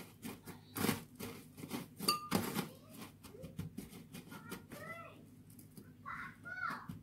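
Dry breadcrumbs crunching and rustling under fingers as a shrimp is rolled and pressed in them on a metal tray, a string of short scrapes. About five seconds in and again near the end, a cat meows a few times.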